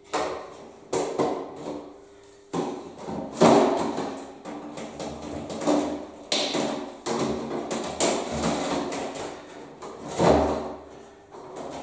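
A series of hard plastic knocks and clunks as an RC model boat's hull and canopy are handled, each a sudden thud with a short echo, the loudest about three and a half seconds in and near the end.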